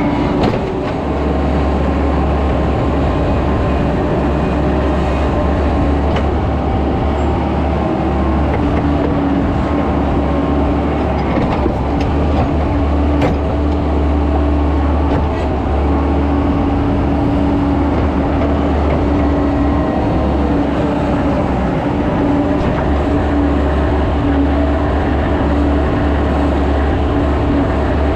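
Skid steer's diesel engine running steadily under work, with a deep constant drone and a few faint clanks.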